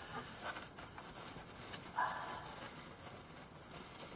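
Faint rustling and handling of plastic bags and packing material inside a cardboard box, with a light click a little under two seconds in.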